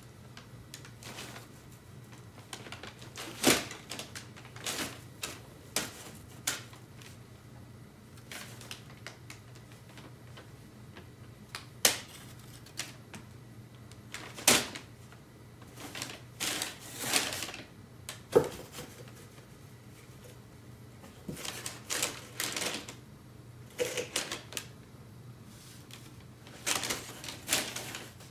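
Crumpled brown paper inside a cardboard box crinkling and rustling as a cat paws and digs at it, in irregular bursts of crackles with quiet gaps between.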